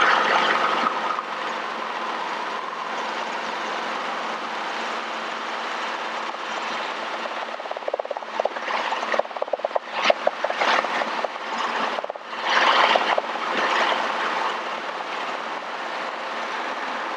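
Robinson R22 Beta II helicopter in a low hover-taxi: a steady drone of rotor and engine heard from the cabin, with a few louder rushes of noise in the second half.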